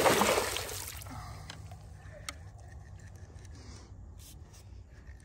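A big fish splashing hard at the water's surface as it is landed in a net, loud for about the first second and then fading into trickling, dripping water with a few small knocks and scrapes.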